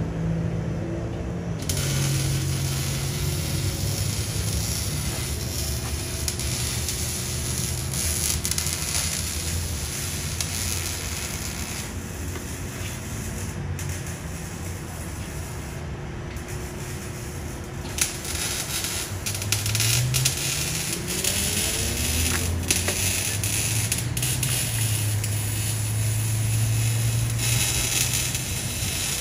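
BMW E92 328i's straight-six exhaust, through catless headers and a Cherry Bomb resonator, running under way over a steady hiss. Its note holds steady, drops, then climbs in pitch as the engine revs up about twenty seconds in, and settles into a steady drone again.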